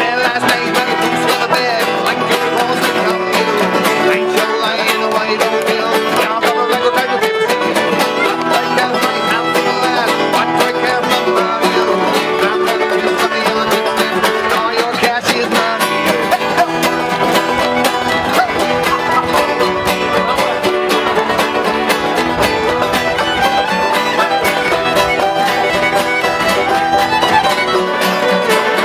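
Background music: a bluegrass-style string-band track with plucked strings and fiddle, playing steadily.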